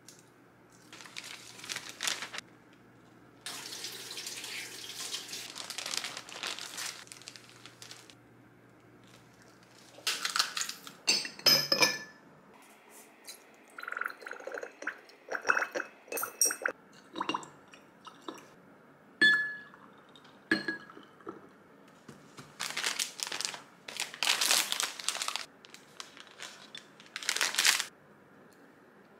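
Close-up handling sounds: paper-interleaved butter slices and their wrapping rustling, then glass clinks and water poured from a glass bottle into a drinking glass, then a foil tart cup crinkling as a cheese tart is peeled out of it.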